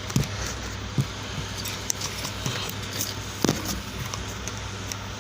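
Pet budgies and lovebirds in a cage: faint short chirps and a few sharp knocks and clicks, likely the birds moving on perches and bars, over a steady low hum.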